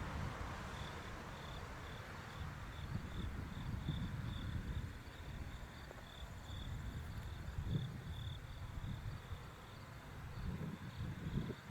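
Insect chirping in an even, high-pitched pulse of about two to three chirps a second, over a gusty low rumble of wind on the microphone.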